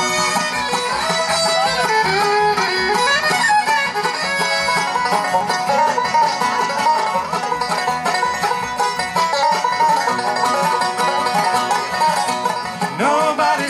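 Bluegrass band playing an instrumental break between verses: fiddle, mandolin, acoustic guitar, a lap-style guitar and upright bass, with a lead melody that slides between notes in the first few seconds.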